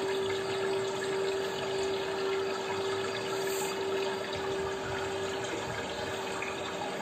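Steady rushing, water-like noise with a steady hum underneath that fades out about five and a half seconds in.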